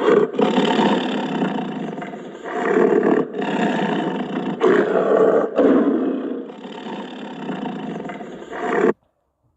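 An animal roaring, loud and rough, in several long stretches with brief breaks, cutting off suddenly near the end.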